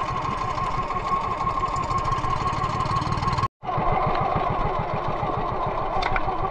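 Engine of a motorized outrigger fishing boat running steadily underway, with water rushing along the hull. The sound drops out for an instant just past halfway.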